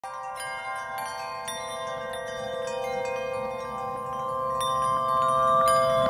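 Chiming, bell-like tones struck at irregular moments over a steady held chord, getting gradually louder.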